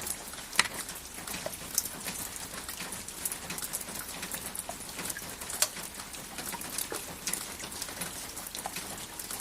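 Steady rain falling, an even hiss with many irregular single drops ticking sharply on a surface.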